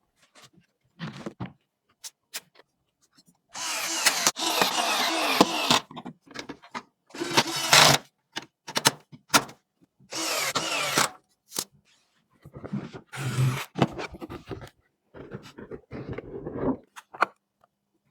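Computer parts being handled and fitted during a PC build: several bursts of rustling and scraping, each one to two seconds long, with separate clicks and knocks between them.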